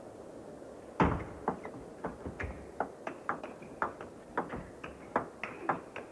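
Table tennis rally: the celluloid ball clicking off the table and the players' bats in quick alternation, several clicks a second. The first click, about a second in, is the loudest.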